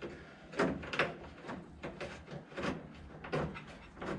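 A series of irregular knocks and clunks from parts and tools being handled while a wiper motor's drive cable is worked into place. The loudest is about a second in.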